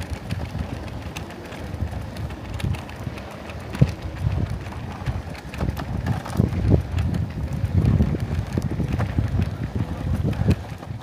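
Wind buffeting the microphone, a gusty low rumble that swells and fades, with scattered light clicks and knocks.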